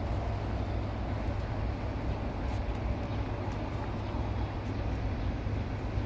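Steady outdoor background rumble, heaviest in the low end, with a faint hiss above it and no distinct events.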